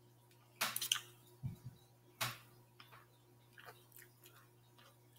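A person eating gravy-smothered chicken: wet chewing and smacking mouth sounds. A cluster of louder smacks comes just over half a second in and another near the middle, with softer ones after.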